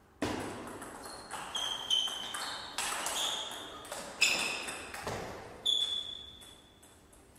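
Table tennis rally: the ball clicks sharply and in quick alternation off the players' bats and the Donic table top, about ten strokes, each with a brief ringing after it. The strokes stop a little before six seconds in, when the point ends.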